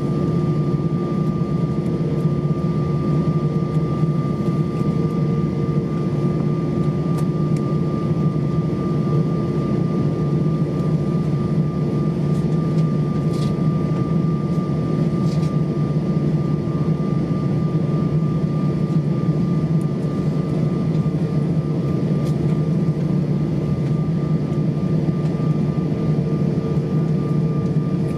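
Airbus A320-232 cabin on the ground after landing, its IAE V2500 jet engines idling: a steady low hum with a thin, steady whine above it.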